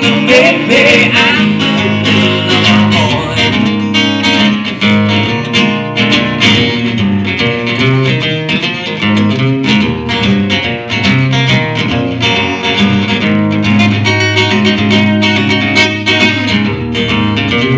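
Acoustic guitar played live through PA speakers: an instrumental passage of quickly picked notes over low bass notes, with no singing.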